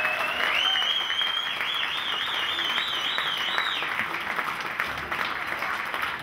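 Audience applauding steadily after the dance, applause the performer takes as a call for an encore. A high whistle rises over it, then warbles up and down and stops a little before four seconds in.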